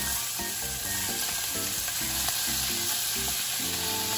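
Chopped raw bacon sizzling as it is pushed from a cutting board into a hot stainless steel frying pan.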